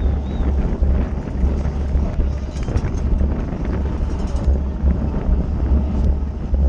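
Wind buffeting the microphone of an onboard camera on a racing bicycle at speed: a steady, heavy low rumble with road and tyre noise and a few faint clicks.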